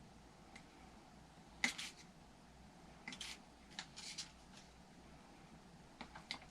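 Faint, scattered clicks and light taps of a small hand tool against the plastic and metal parts of an RC truck chassis, as a wire is pushed down into place.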